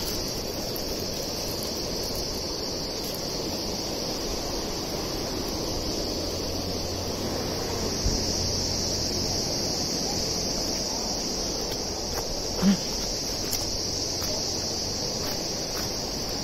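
Steady high-pitched chirring of insects, unbroken throughout, over a low outdoor rumble, with one short thump about twelve seconds in.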